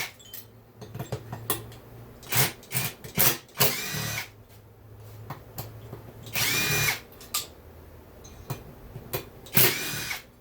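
Cordless power drill/driver run in about five short bursts, its motor pitch rising and falling with each one, backing out screws on a chainsaw.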